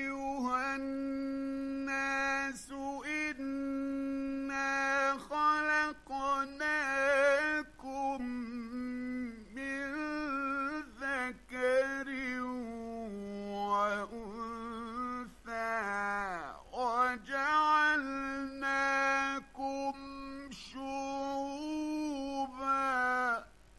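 A man's voice chanting Quran recitation in drawn-out, ornamented phrases, the pitch wavering and gliding on held notes between short breaths. The voice dips lower about two-thirds of the way through and stops shortly before the end.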